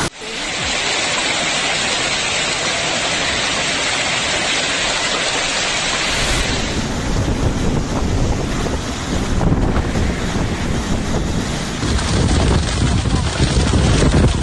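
Storm wind and heavy sea surf, a dense rushing noise with wind buffeting the microphone. About six seconds in it turns lower and gustier, with uneven surges.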